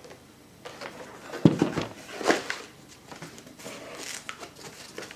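Cardboard and foam packing of a graphics card box being handled and lifted out: irregular rustling and small clicks, with a sharp knock about a second and a half in.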